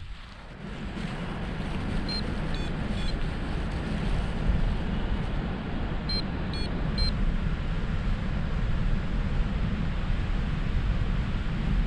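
Airflow of paraglider flight buffeting the microphone: a steady low rumble. Two groups of three short, high electronic beeps, about two seconds in and again about six seconds in.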